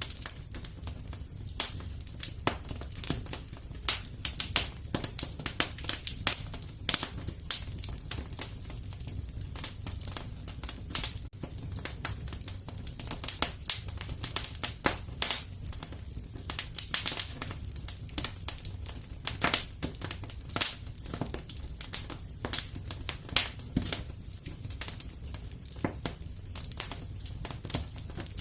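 Wood fire crackling in a fireplace: irregular sharp pops and snaps over a steady low rumble of the flames.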